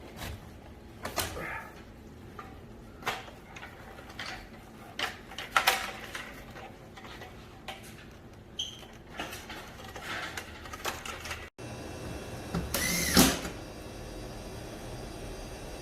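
Scattered clicks, taps and knocks of plastic and metal parts being handled as a Carrier four-way cassette air conditioner is taken apart, with a louder scrape and a short squeak near the end.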